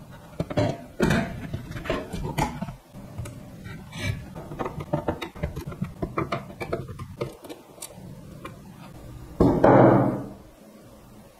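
Handling noises from assembly work: irregular small clicks and knocks of capacitors and parts being fitted inside the amplifier chassis. Near the end comes one louder clatter lasting under a second, as the metal front panel is handled on the wooden table.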